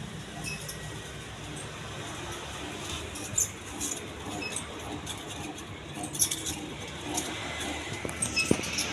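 Majestic Deluxe decorative ceiling fan running: a steady running noise with scattered light clicks and clinks, the louder ones about three and a half, six and eight and a half seconds in.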